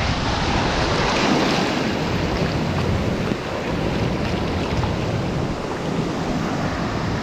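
Rushing water and wind buffeting the microphone on a water-park tube ride, a loud, steady roar.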